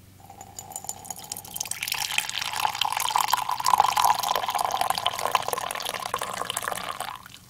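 Coffee pouring in a thin stream into a ceramic mug, the splashing filling sound swelling about two seconds in, its pitch edging upward as the mug fills, and stopping abruptly near the end. A faint low steady hum sits underneath.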